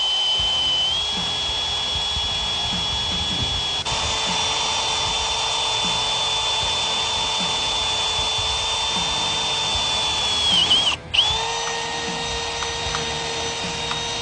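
Power drill motor running with a steady whine that steps up slightly in pitch twice. It stops for a moment about eleven seconds in and then runs again at a lower pitch.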